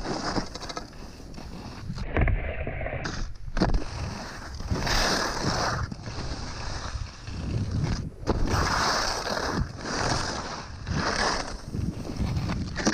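Skis sliding and scraping over hard, icy snow, swelling into a louder hiss several times as the edges bite in turns, over a steady rumble of wind on the microphone.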